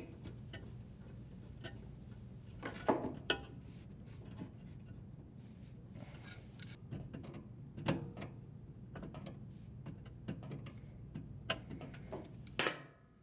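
Brass nut of a braided water supply line being threaded and tightened onto a dishwasher's water inlet valve: irregular faint metallic clicks and scrapes, with a few louder ones about three seconds in and a louder scrape near the end.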